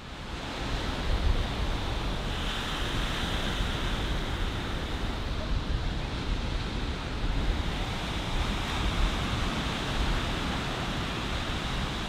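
Ocean surf breaking on a beach in a steady rush of waves, with wind buffeting the microphone.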